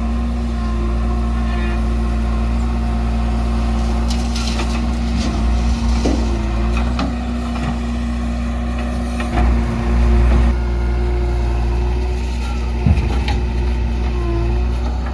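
Diesel engine of a JCB 3DX backhoe loader running steadily under work, with a louder surge a little past the middle and a few clanks and knocks, the sharpest near the end.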